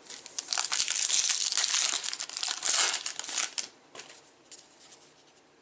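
A trading-card pack wrapper crinkling and tearing as it is ripped open, for about three and a half seconds, then only faint handling of the cards.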